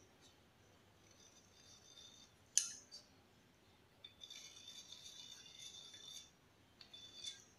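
Faint scratching of a pencil marking through the bolt holes of a 2 mm steel plate held against a wall, with a sharp click about two and a half seconds in. The longest stretch of scratching runs from about four to six seconds in, with a shorter one near the end.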